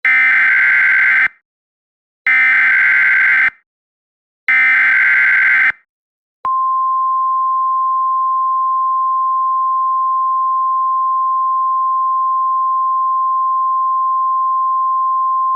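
NOAA Weather Radio alert: three short bursts of the SAME digital header, then the single steady 1050 Hz warning alarm tone starting about six seconds in, signalling the emergency broadcast of a tornado watch.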